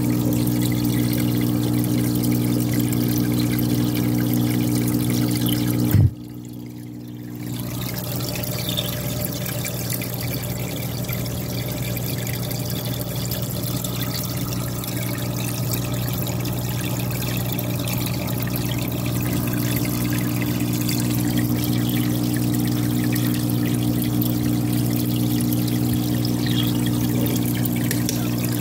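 Fish-tank filter pump running: water trickles and splashes steadily into the tank over a steady low electric hum from the pump motor. The sound drops away suddenly about six seconds in and comes back over the next two seconds.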